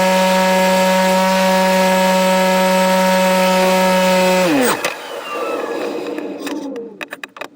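The electric motor and propeller of an RC ASW-28 sailplane model, heard from inside the cockpit, run at a steady high whine, then cut off about four and a half seconds in and spin down quickly. After that a softer rush of airflow is heard, with a quick run of clicks and knocks near the end.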